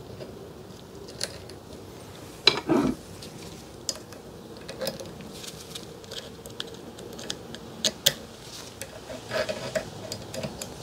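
Scattered small metallic clicks and scrapes of a retaining clip being worked into its groove inside a steel ATV A-arm pivot tube, with one louder knock about two and a half seconds in.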